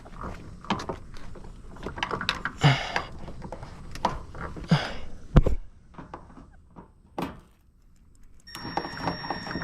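Scattered clicks and knocks of a socket wrench and extensions working on the fender bolts, with one louder thump about five seconds in. A faint steady tone starts near the end.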